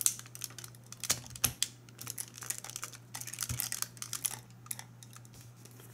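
Hot Toys 1/6 scale Iron Man Mark 45 figure's torso armor pieces clicking and tapping as they are handled and pushed back into place. There are many small irregular clicks, which thin out near the end.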